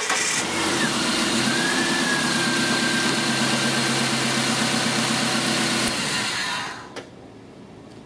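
A 2000 Dodge Neon's 2.0-litre four-cylinder engine started by bypassing the ignition switch, with the test light jumping the starter relay's control wire to battery positive. It catches and runs steadily, then stops about seven seconds in. That it starts shows the relay and the rest of the starter circuit work, and puts the no-crank fault in the ignition switch.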